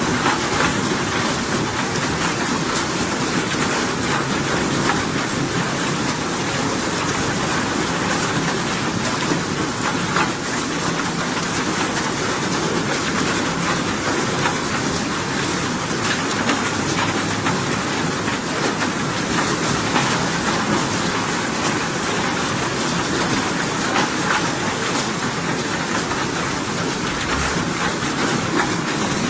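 Steady rain falling, a continuous even hiss that does not change.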